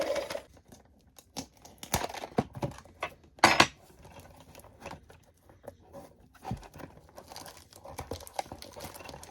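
Toy packaging being handled and torn open: irregular crinkles and clicks, the loudest rustle about three and a half seconds in.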